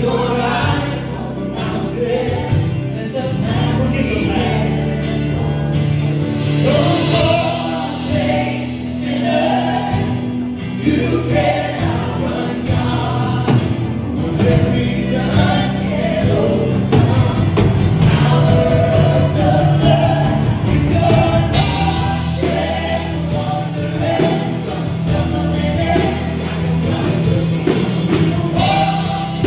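Live church worship band playing a contemporary Christian song: group singing over acoustic and electric guitars, bass and piano. The band grows brighter and fuller about two-thirds of the way through.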